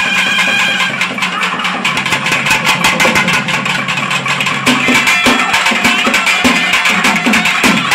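Traditional temple festival music: fast, steady drumming with a brass horn holding long notes over it, the horn's melody moving lower about five seconds in.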